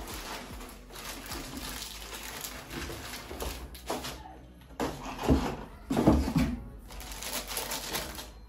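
Plastic wrap and cardboard packaging rustling and crinkling as a laptop is pulled out of its box, with two louder knocks about five and six seconds in.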